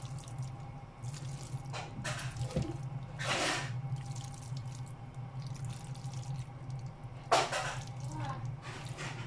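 Kitchen tongs tossing spaghetti in a creamy sauce in a pan: wet squelching in a few short bursts, the loudest just past seven seconds in, over a steady low hum.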